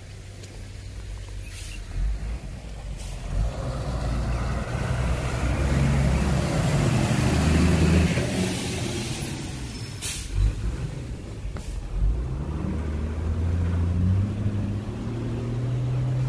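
A bus drives past close by on a wet road, its engine running and tyres hissing on the wet surface. The sound swells to a peak about halfway through and then eases off. Another vehicle's engine grows louder again near the end.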